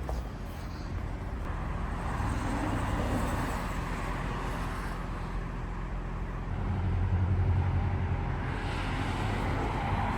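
Car engine running steadily with a low hum, swelling louder for a second or two about seven seconds in.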